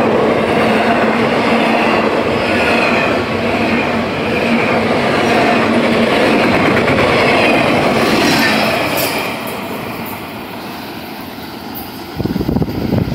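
Double-stack intermodal freight train rolling past close by: a loud, steady rumble and clatter of steel wheels on rail, with a few short high wheel squeals about nine seconds in. The noise then fades as the end of the train passes and moves away, and wind buffets the microphone near the end.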